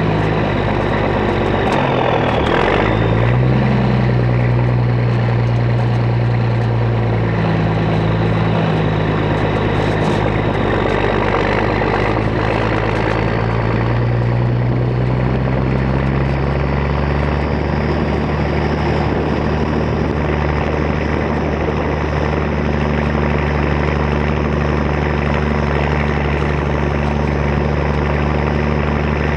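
Straight-piped Caterpillar 3406 diesel in a loaded International dump truck, running hard as the truck drives. The engine pitch drops and climbs back about two seconds in, then rises gradually and holds steady through the second half.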